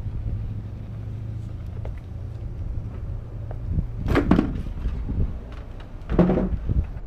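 Onewheel electric skateboard rolling, its hub motor giving a steady low hum. Two short loud rattling bursts come about four and six seconds in as the board rides over rougher ground.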